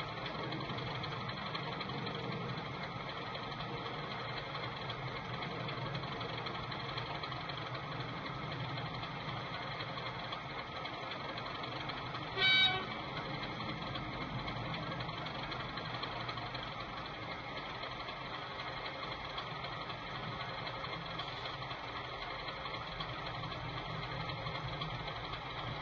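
A sound-fitted model diesel locomotive's engine idling steadily, with one short horn toot about halfway through.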